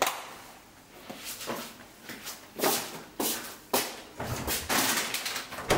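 Kitchen handling noises at an open refrigerator: a string of short knocks and rustles as things are moved and taken out, with a longer rustling stretch near the end.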